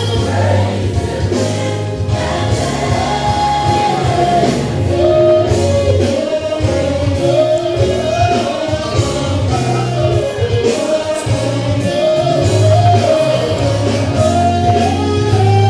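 Gospel music with group singing over a heavy bass line, playing without a break.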